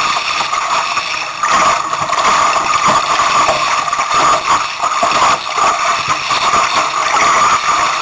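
Steady rush of wind and water around a small Sunfish sailboat moving under sail in strong wind: a dense, loud hiss that swells and dips slightly, with no let-up.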